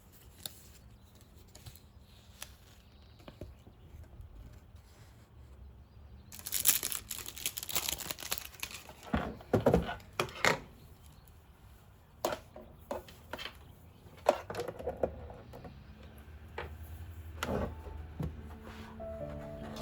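Rustling and crinkling with scattered light clicks and knocks from things being handled, busiest through the middle.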